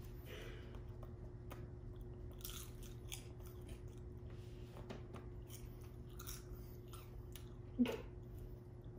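A person chewing a crisp spicy seaweed snack with the mouth close to the microphone: faint, irregular crunching and crackling. A short vocal hum comes near the end.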